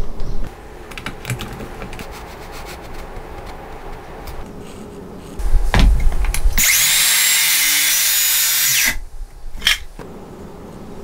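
Knocks and clicks from clamping and handling wood, then a Makita cordless circular saw runs for about two seconds in the middle, cutting a spline slot across a mitred wooden corner. It stops suddenly, and a few light clicks follow.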